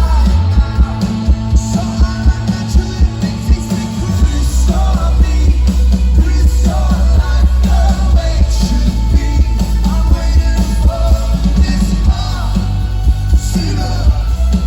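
Live rock band playing loudly, with heavy bass and a steady drum beat.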